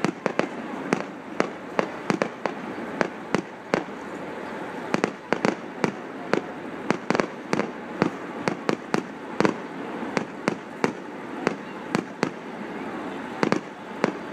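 Aerial fireworks display: shells bursting in a rapid, irregular series of sharp bangs, roughly two a second, with a brief lull about four seconds in.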